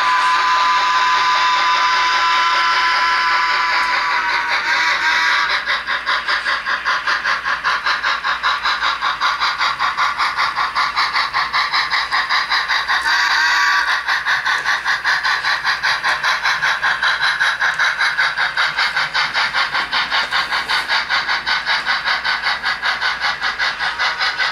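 Model steam locomotive, a 2-10-0, running with sound: a steady rhythmic chuffing exhaust beat as it pulls its train. A held several-note tone sounds over it and fades about five seconds in.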